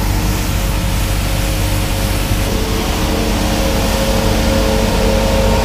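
Bucher CityCat compact vacuum street sweeper running as it sweeps a paved path: a loud, steady machine drone with several steady humming tones over it.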